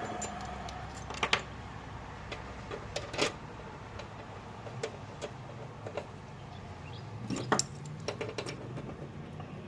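Scattered metallic clinks and knocks of tools and metal parts being handled as a jaw puller is set up and adjusted, in small clusters a few seconds apart over a low steady hum.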